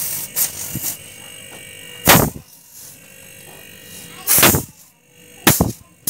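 Salvaged refrigerator compressor being tested as an air pump: about five short, loud bursts of rushing air from its tubes, the loudest about two seconds in, then two more near the end, over a faint steady hum.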